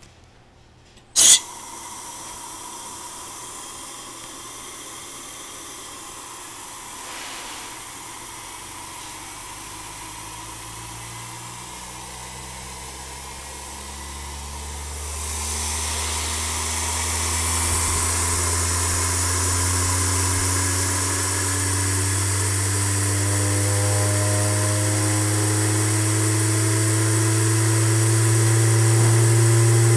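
Homemade Tesla turbine running on compressed air at 15 psi: a sudden blast of air about a second in, then a steady hiss as the rotor spins up, with a hum that slowly rises in pitch and grows louder from about halfway as the turbine climbs past 6,500 rpm.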